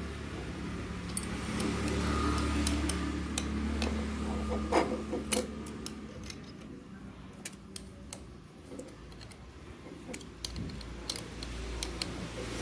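Small metal tools and parts clicking and clinking, with a low steady engine-like hum underneath that fades out about halfway through.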